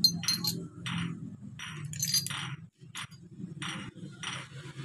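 Steel gearbox parts of a Honda GL Pro engine, the gearshift drum and shift forks, clinking against each other and the split aluminium crankcase as they are handled. The clinks are sharp and come at the start and about two seconds in. Under them, a rasping stroke repeats roughly every half second over a low steady hum.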